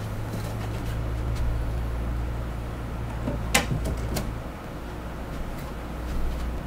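A few sharp knocks as white shelf panels are set upright onto low cabinets, the loudest about halfway through, over a steady low hum.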